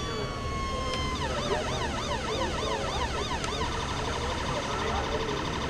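Electronic emergency-vehicle siren sounding through a siren speaker and being switched between its tones. It starts on a steady, slowly falling tone, changes about a second in to a fast yelp rising and falling about four times a second, and a little past halfway switches to a very rapid warble.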